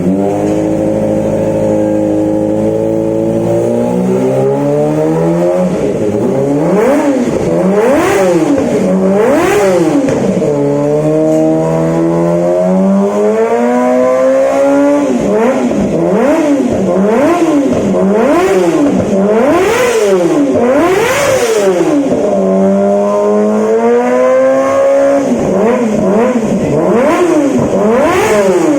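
Kawasaki ZX-25R's 250 cc inline-four engine revving hard, with long rising climbs in pitch and many quick up-and-down throttle blips, and sharp exhaust pops and crackles on the overrun.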